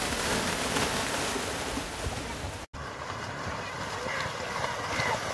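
Noisy open-air crowd: spectators' voices chattering and calling over a steady rush of wind-like noise, with the sound dropping out for an instant about two and a half seconds in.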